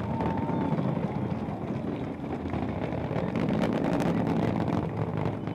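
Rocket roar of the GSLV Mk III's twin S-200 solid rocket boosters in flight, a loud, steady rumble with crackle that cuts in abruptly.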